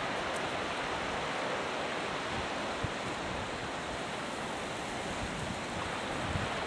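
Sea surf breaking and washing up a sandy beach: a steady rushing, with wind buffeting the microphone.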